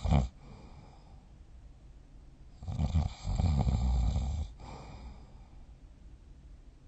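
A person snoring in deep sleep: a loud, rattling snore about three seconds in, lasting nearly two seconds with a short break partway, between quieter breaths.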